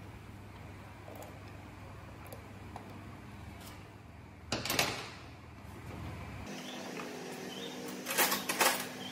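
Workshop room tone with a steady low hum, broken by brief sharp clatters of metal. There is one clatter about halfway through and a louder run of them near the end.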